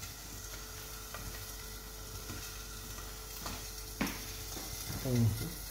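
Steady sizzling hiss of food frying in a closed grill pan on a gas stove, with a faint steady hum under it and one sharp click about four seconds in.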